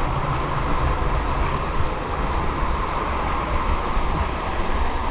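Rushing canyon water: a steady, loud rush with a deep rumble underneath.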